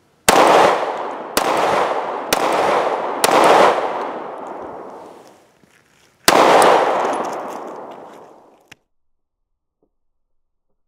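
Five shots from a Detonics Pocket 9, a straight-blowback 9mm pocket pistol. Four come about a second apart, then a fifth follows some three seconds later, each with a long echo trailing off.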